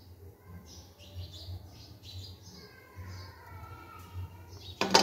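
Birds chirping in the background over a low steady hum, with a single sharp clank just before the end.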